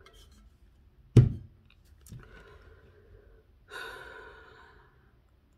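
A woman's long, audible sigh: a breathy exhale, then a stronger one near the end that trails off. About a second in comes a single sharp thump, as of a hard object set down on a table.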